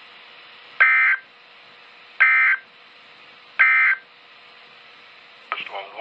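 Three short bursts of Emergency Alert System (SAME) digital data from a NOAA Weather Radio receiver's speaker: the end-of-message signal that closes the warning. Each burst is a buzzing data squawk about a third of a second long, the three about a second and a half apart, over a faint radio hiss.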